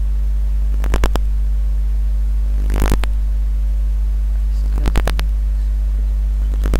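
Loud steady electrical mains hum from a faulty microphone, with short clusters of two or three sharp clicks about every two seconds, mouse clicks as the computer is operated.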